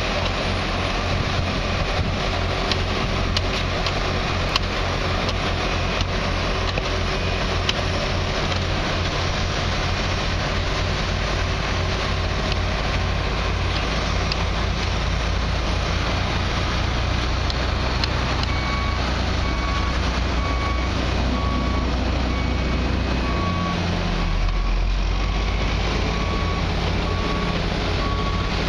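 Heavy diesel engines of a concrete pump truck and a ready-mix mixer truck running steadily while concrete is pumped. A backup alarm starts beeping about two-thirds of the way in, a little more than once a second.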